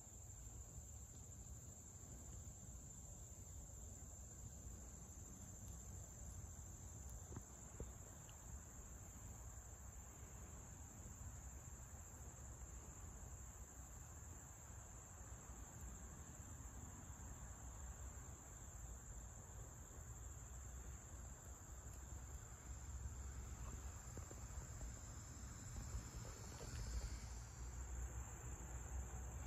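Faint insect chorus: one steady, unbroken high-pitched trill, with a low rumble underneath.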